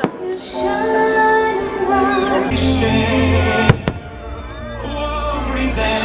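Fireworks-show soundtrack of orchestral music with singing over loudspeakers. It is cut by sharp firework bangs: one at the start and a louder one a little past halfway.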